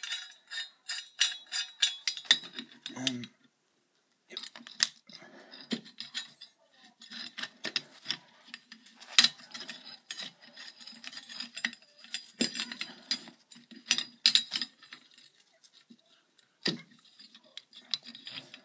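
A steel bearing puller being handled and fitted onto the bearing of an electric motor's rotor shaft: irregular metallic clicks and clinks of its jaws and arms against the bearing and housing. There is a brief dead-silent break about three seconds in.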